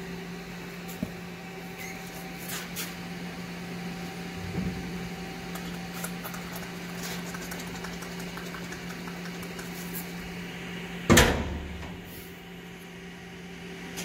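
Hinged steel door welded into a barrel stove made from an old oil tank, handled with light latch and handle clicks and shut with one loud metal clang about eleven seconds in, over a steady low hum.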